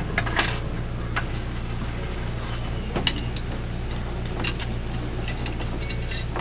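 Scattered small clicks and light rattles of wires and a wall light switch being handled, over a steady low mechanical hum.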